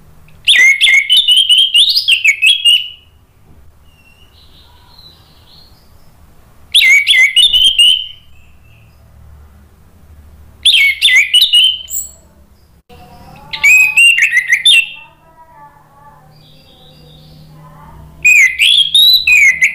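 Orange-headed thrush singing loudly in five phrases of rapid, varied high notes. Each phrase lasts one to two and a half seconds, with pauses of a few seconds between them, and the first phrase is the longest.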